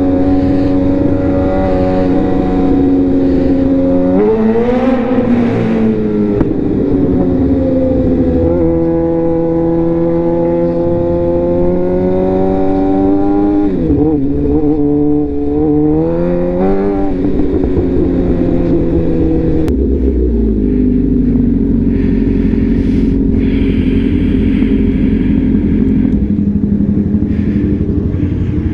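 Suzuki GSX-R 750's inline-four engine heard from the rider's seat while riding: a steady run broken by a dip and climb in revs about four seconds in and a longer climb in revs around a third of the way through, then settling lower and steadier for the last third as the bike slows.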